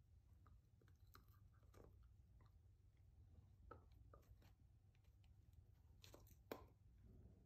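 A dog chewing a rawhide bone: faint, irregular crunches and cracks as its teeth work the hide, with a louder run of cracks about six seconds in.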